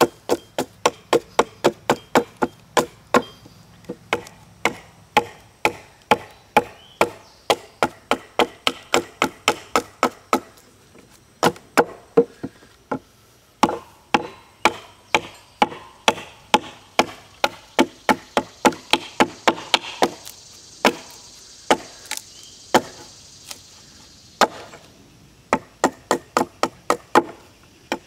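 Rapid chopping: a small forged edge tool on a short wooden handle striking a sassafras log held upright on a wooden bench, about two to three sharp blows a second. The blows pause briefly a couple of times and come more sparsely for a few seconds past the middle.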